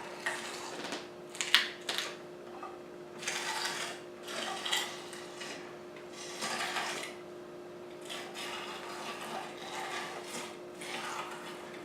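Meat grinder grinding celery: irregular crunching and mechanical clicking of the grinder's gears as the stalks are forced through.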